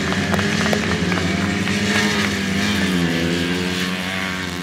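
Several off-road motorcycles riding off across a grass field, their engines running loudly together, with the engine pitch rising and falling as the riders change speed.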